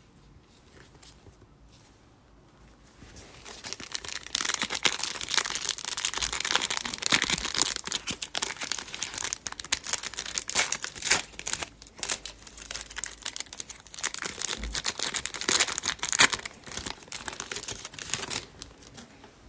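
Plastic foil trading-card pack wrapper crinkling and tearing as it is ripped open and handled, a dense crackling that starts a few seconds in and dies away just before the end.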